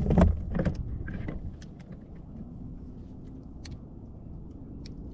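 Thumps and rough handling noises for about the first second, then scattered light clicks over a low steady rumble. This is a freshly caught walleye being handled and unhooked in a kayak.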